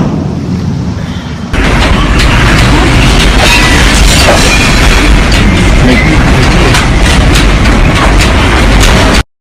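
Hurricane-force wind blowing hard against the microphone: a loud, steady rush with heavy low buffeting that starts abruptly about a second and a half in and cuts off just before the end.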